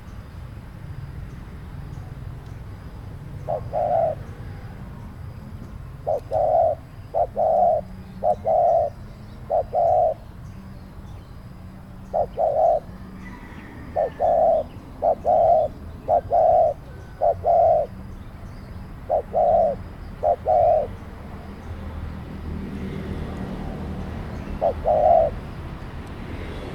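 Dove cooing: short, low, hollow notes in phrases of one to three, repeated every second or two with pauses between.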